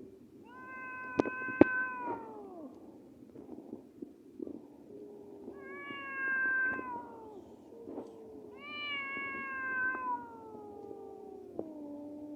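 Domestic cats yowling at each other in a fight standoff: three long, drawn-out wails that drop in pitch at their ends, with lower moaning howls between them. Two sharp clicks sound about a second in.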